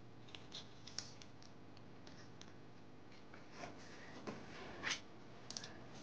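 Thin origami paper being folded and creased by hand: faint rustles and small crackles, with a few louder crinkles in the second half.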